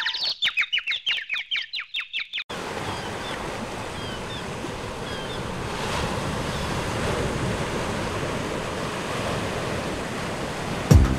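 A cartoon dizzy 'seeing stars' effect of rapid repeated twittering chirps for the first couple of seconds. It cuts off sharply into steady sea ambience of waves and surf, with a few faint high chirps.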